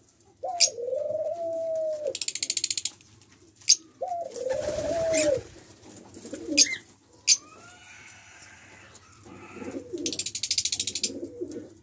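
Caged ringneck (Barbary) doves cooing: two drawn-out coos, each jumping up then falling away, about a second and four seconds in, with another starting at the very end. A rapid high buzzing rattle sounds twice between them, with a few sharp clicks.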